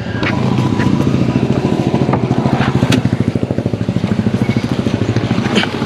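A motor vehicle's engine idling with a rapid, even throb, with a few light clicks over it.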